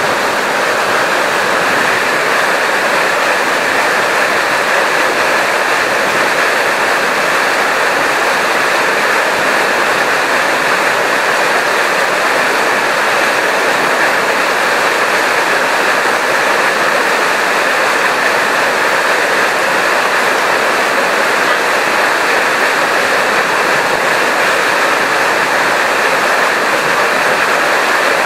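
Steady, loud rush of water that does not change, with no other sounds standing out.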